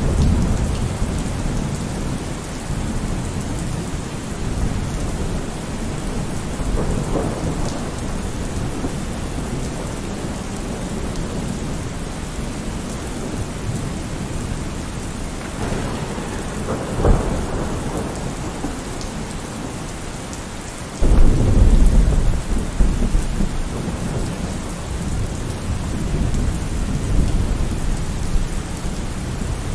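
Steady rain with thunder rumbling. A sharp crack comes a little past halfway, and a few seconds later a loud, low rumble of thunder breaks in suddenly and slowly dies down.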